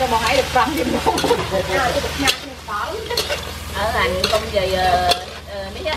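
Metal spatula stirring and scraping a wok full of sea crabs being stir-fried, with sizzling and frequent sharp clacks of the spatula against the pan.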